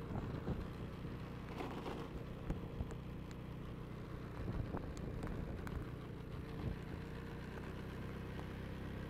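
Car driving slowly with its engine running steadily: a low hum with a faint steady whine above it, plus scattered light ticks and knocks, heard from inside the cabin.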